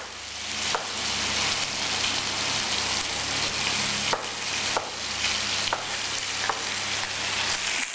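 Chicken thighs and vegetables frying in two pans, a steady sizzle. Over it, several sharp knife taps on a wooden chopping board as small tomatoes are cut.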